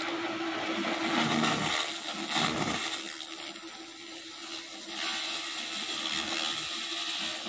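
A running 200 W pulsed fiber laser cleaning machine: a steady hum with a hiss over it, which drops quieter for a few seconds in the middle before coming back up.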